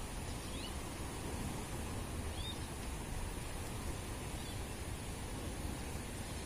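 Steady outdoor background noise, a hiss with a low rumble, with three faint short high chirps about two seconds apart.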